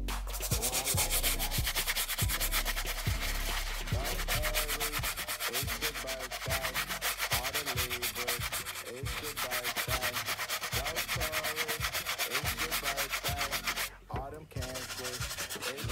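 Rapid back-and-forth scrubbing on a sneaker's sole, with fast, even strokes that stop briefly about fourteen seconds in.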